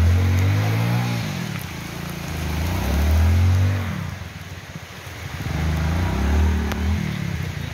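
Motorcycle engine revving hard in three surges a few seconds apart, each rising and falling in pitch, as the bike is forced through thick roadside undergrowth under load.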